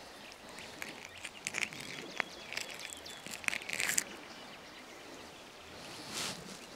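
Faint rustling and irregular small clicks of hands working at fishing tackle with a cloth, followed by a short scuff of footsteps in sand near the end.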